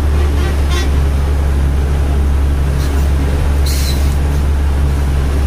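Truck engine and road noise heard from inside the cab while driving, a steady deep drone. A short hiss comes near 4 s in.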